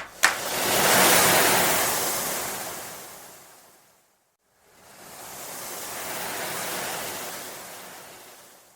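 Two swells of rushing noise, each rising and fading away over about four seconds, like waves washing in.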